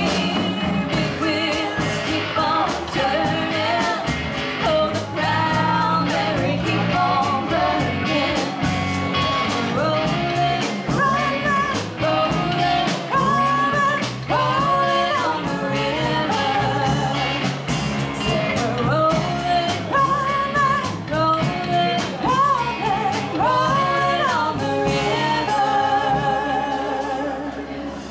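Live rock band playing a song with a sung lead vocal over guitar and a steady drum beat.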